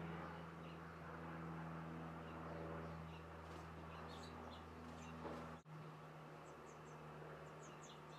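Faint outdoor ambience: a steady low hum with small birds chirping in the background, in quick clusters of three or four short high notes. All sound cuts out for an instant about five and a half seconds in.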